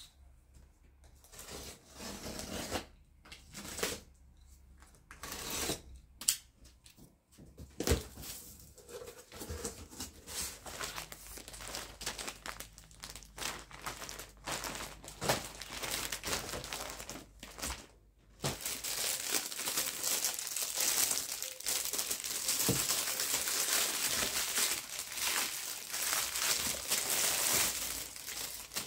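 Clear plastic packaging bags crinkling and rustling as they are handled and pulled out of a cardboard box: irregular bursts at first, then denser, continuous crinkling through the last third.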